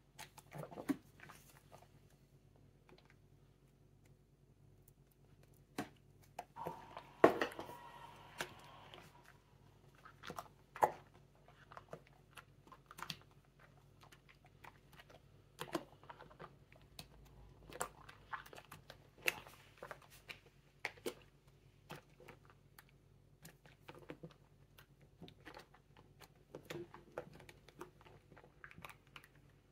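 Hands squeezing and kneading a wet, foamy slime-like mix of paint, glue and bath products in a glass bowl: irregular wet squelches and small crackling pops, loudest about seven seconds in.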